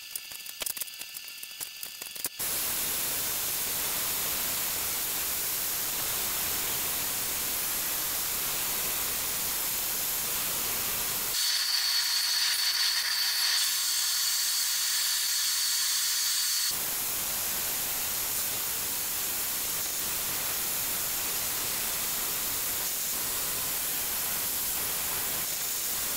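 A few light clicks of a marking gauge on plywood, then a steady hiss of shop dust extraction running at the drill press. About halfway through it turns louder and thinner with a steady high whistle for about five seconds, then settles back.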